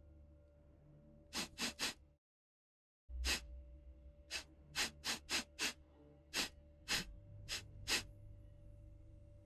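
A man sniffing sharply through his nose in short bursts: three quick sniffs about a second and a half in, then, after a brief dropout, about ten more at uneven spacing, over a faint steady ambient hum.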